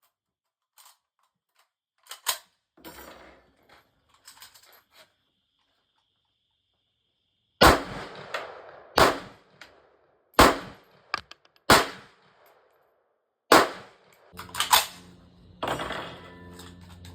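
A firearm fired at a steady pace, about six shots roughly one and a half seconds apart, after a few metallic clicks of gun handling.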